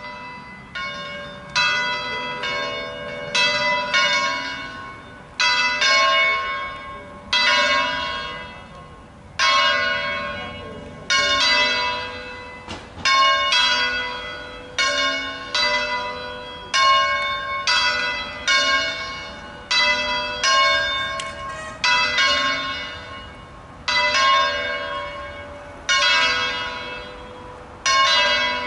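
The two smaller church bells of a three-bell peal in A3, cast in bronze by Crespi of Crema in 1851, the C♯4 bell recast in 1893, swung full-circle in the Italian 'distesa' style. The first clapper strokes land right at the start and grow louder over the first few seconds as the swing builds. After that the two bells strike in an uneven interleaved rhythm, a stroke every half-second to two seconds, each ringing on before the next.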